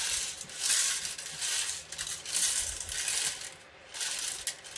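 Hard plastic Lego Technic pieces rattling and clicking in short, uneven bursts about once a second as the model is handled.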